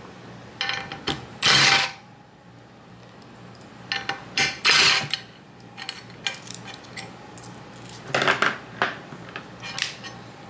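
Cordless impact driver in several short bursts, each under a second, backing out stuck bolts from an aluminium jack-plate mounting bracket. Sharp metallic clicks and clinks of the bit, bolts and bracket on the metal plate come between the bursts.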